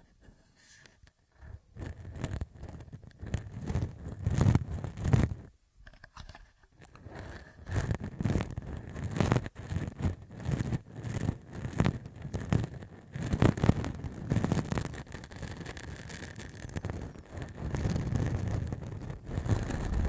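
Short, rough beard stubble scratched directly against a Tascam handheld recorder's microphone. It is a dense, crackly scratching with heavy low rubbing thumps from the mic being pressed into the skin. It starts about a second and a half in and breaks off briefly near six seconds.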